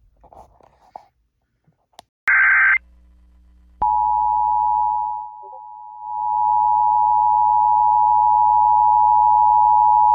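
Emergency Alert System tones: a short, loud burst of screeching digital header data, then about a second later the steady two-tone EAS attention signal. The tone dips in level for about a second shortly after it starts, then comes back and holds.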